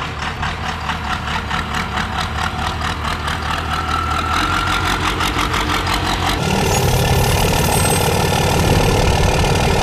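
A second-generation Dodge Ram's 5.9 Cummins inline-six diesel running at low speed as the truck rolls slowly, with an even, rapid diesel clatter. About six seconds in the sound changes abruptly to a different steady engine-like sound.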